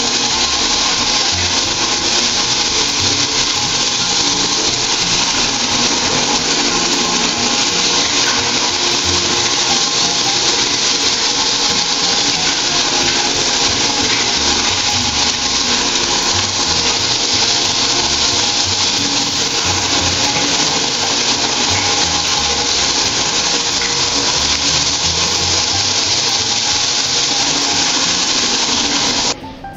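Single-disc rotary floor machine running steadily with a diamond polishing pad on a terrazzo floor: a constant motor hum under a loud hiss of the pad grinding the stone. It cuts off abruptly near the end.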